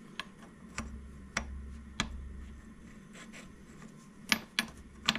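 Sharp metallic clicks of a model steam engine's bronze cylinder casting and its machined cylinder head being handled and set against each other on steel parallels during a test fit. There are four evenly spaced clicks in the first two seconds and three more near the end, over a steady low hum.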